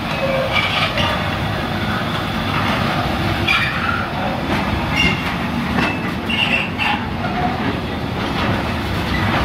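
Loaded container flat wagons of a freight train rolling slowly past. The wheels rumble and click over the rail joints, with brief wheel squeals here and there.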